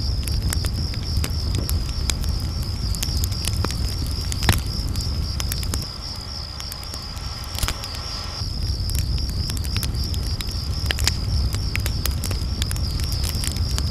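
Campfire crackling, with sharp pops, over a steady chirring of crickets and a low rumble. The loudest pop comes about four and a half seconds in.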